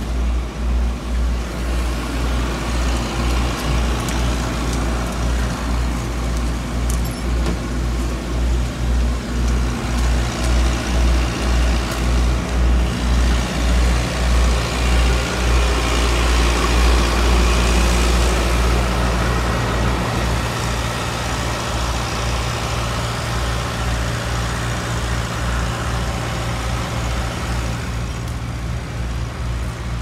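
Heavy diesel machinery running steadily: a deep engine drone with a regular pulsing swell in loudness, a little louder around the middle.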